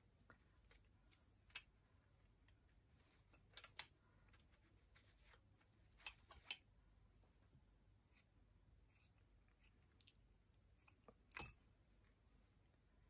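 Near silence broken by a handful of faint, short snips and rustles: fabric scissors cutting pink lace trim and the trim and scraps being handled.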